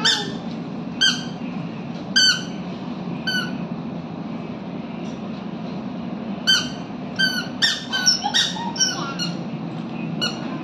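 A toddler's squeaky sandals chirping with her steps. There is a short high squeak about once a second, then quicker squeaks close together from about six and a half seconds in. A steady low hum runs under them.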